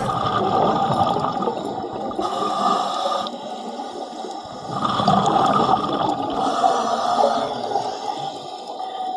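Water gurgling and bubbling around a 360 camera in its underwater housing, swelling and fading every few seconds.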